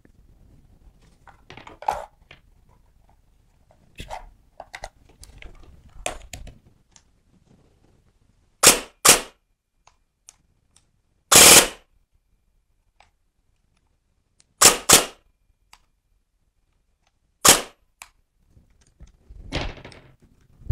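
Silverback MDR-X airsoft electric rifle being handled with a few small clicks, then firing: six sharp shots starting about halfway in, mostly in close pairs, and one of them drawn out to about half a second.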